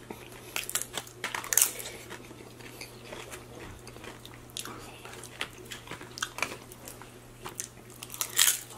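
Close-up crunching and chewing as a person bites into and eats tortilla-chip nachos, with many short crisp crackles. The loudest crunches come about a second and a half in and again near the end, over a faint steady low hum.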